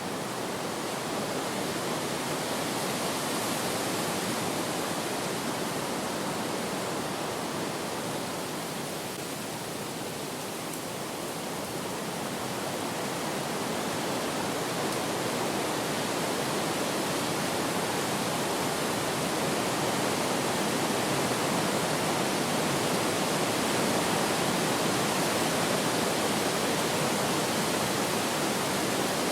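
Wind blowing as a steady rush of noise. It swells a little a few seconds in, eases slightly near the middle and builds up again toward the end.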